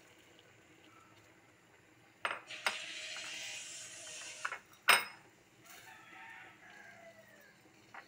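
Metal clinks and knocks of kitchenware against a stainless steel cooking pot over a hiss, the loudest knock about five seconds in. Near the end, a faint call that wavers and falls in pitch.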